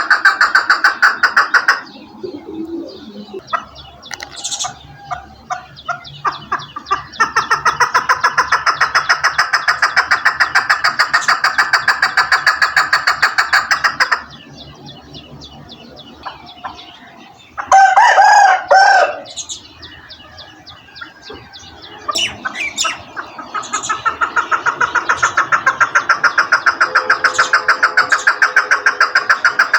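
Chukar partridge (chakor) calling: long runs of rapid, evenly repeated clucking notes, broken by quieter pauses, with a louder, harsher call about eighteen seconds in.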